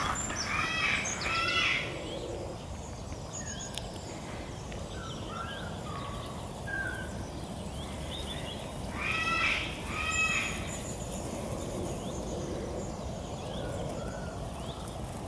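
Outdoor birdsong, with small chirps throughout. A louder, harsh two-part call comes twice, about a second in and again around nine seconds in.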